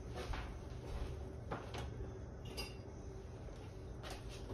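Light kitchen clean-up knocks and clicks, such as cupboards, drawers and utensils being handled, spaced irregularly, with a small ringing clink about halfway through.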